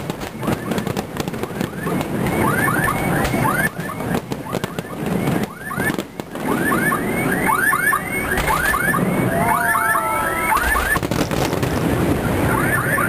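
Fireworks shells bursting with bangs and crackle in the closing barrage, over an alarm's quick, rising chirps repeating again and again; the chirping carries on as the bursts die away.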